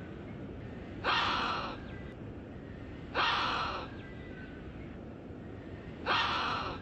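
Speculative dinosaur calls made from slowed-down, time-stretched bird recordings (Pander's ground-jay, white-winged grosbeak, red-billed chough): three harsh, breathy calls, each under a second, about a second, three seconds and six seconds in, over a steady low background rumble.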